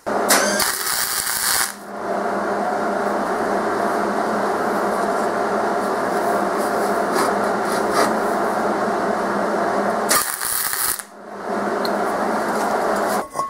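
Flux-core MIG welding arc crackling steadily as flux-core wire is laid into cast iron to tack a broken skillet handle, with a brief break about eleven seconds in.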